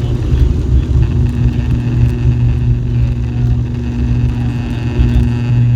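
ATR 72-600's Pratt & Whitney PW127M turboprop engines and propellers running at taxi power, heard inside the cabin: a loud, steady drone with a low propeller hum and a steady tone above it.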